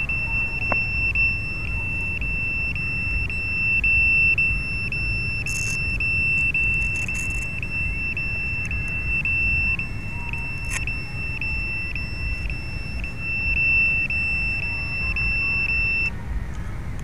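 Electronic beeper on an FPV quadcopter sounding a steady high-pitched tone that breaks briefly about twice a second, then cuts off suddenly near the end. A low steady rumble runs underneath.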